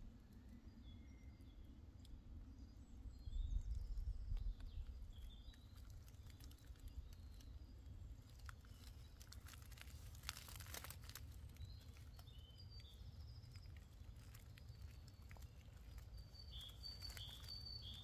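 Footsteps crunching on dry leaf litter and twigs on a forest floor, with small birds chirping now and then and a short run of repeated chirps near the end. A low rumble swells about three to four seconds in.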